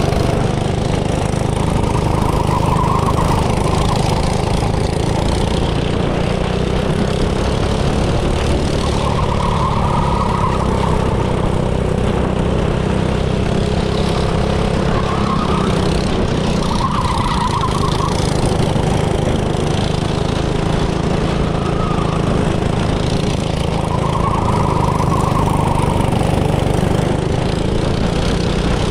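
Go-kart engines running under a steady low drone, with a higher engine note swelling and fading several times as a kart revs or passes.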